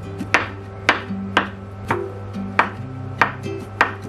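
Kitchen knife chopping an avocado on a wooden cutting board: about seven sharp knocks of the blade on the board, roughly two a second, over light background music.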